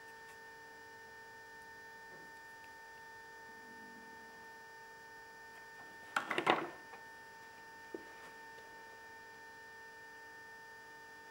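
Steady electrical hum with a whine-like tone. About six seconds in, a brief clatter of hard acrylic parts being handled on a bench, and one more click a moment later.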